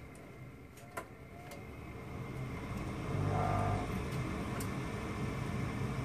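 Gas furnace's draft inducer motor running with a steady low hum that swells a little about halfway through. There is a sharp click about a second in and a few faint ticks as the igniter and its wiring are handled for a meter check.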